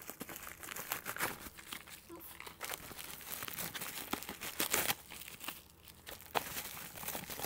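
Plastic bubble-wrap packaging crinkling and rustling as it is unwrapped by hand, with a few sharper crackles.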